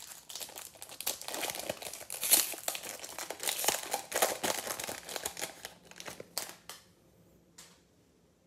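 Wrapper of a 2021 Topps Chrome baseball hobby jumbo pack being torn open and crumpled by hand: a dense crinkling and crackling that dies away about seven seconds in, followed by a single faint click.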